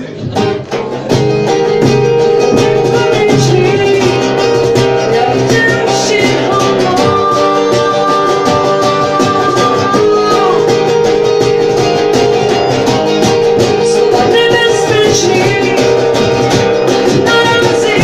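Live acoustic band music led by guitar, playing a passage without lyrics. It comes back in at full level about a second in, after a brief dip.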